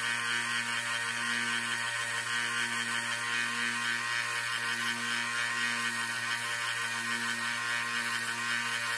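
Small bench belt sander running steadily, a motor hum under a high whine, as a fine silver wire is sanded on the belt.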